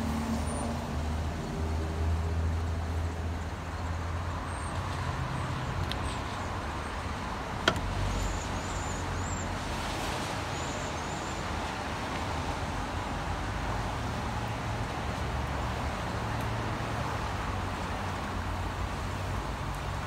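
Traffic on a rain-wet street: a steady hiss of rain and tyres on wet pavement over the low rumble of idling and slowly moving vehicles, with one sharp click about eight seconds in.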